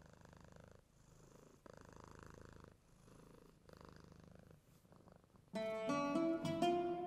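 A domestic cat purring faintly, its purr rising and falling with each breath about once a second. About five and a half seconds in, loud plucked-string oud music begins.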